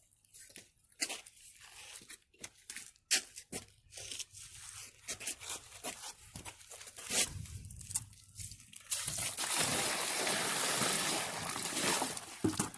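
Concrete being mixed by hand: irregular gritty scraping and crunching strokes, then about nine seconds in a steady pouring hiss that lasts about three seconds.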